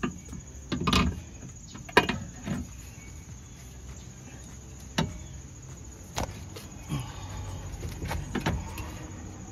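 Irregular metal clunks and knocks as a new lower control arm is worked up into its mounts under a Toyota Camry, the loudest about two seconds in. The arm won't go high enough to pivot into place.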